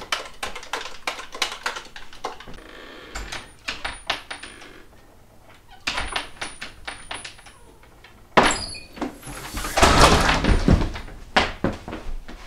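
Rapid clicking of laptop keyboard typing for the first two seconds, then scattered knocks and a louder clatter and rustle about eight to eleven seconds in, as of a door being opened and shut.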